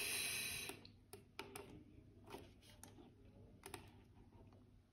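Faint, scattered clicks and taps on a laptop computer, after a brief hiss at the start.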